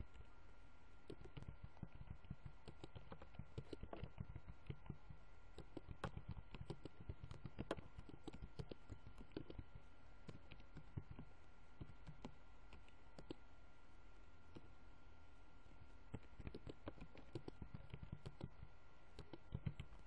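Computer keyboard being typed on: irregular runs of faint key clicks with a pause about two-thirds of the way through, over a faint steady hum.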